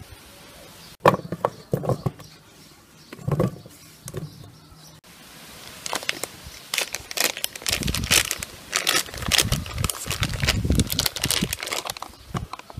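Plastic film wrapping crinkling and crackling as it is cut with a knife and peeled off a block of cheese on a wooden cutting board, with scattered handling knocks early on and dense, irregular crackling through the second half.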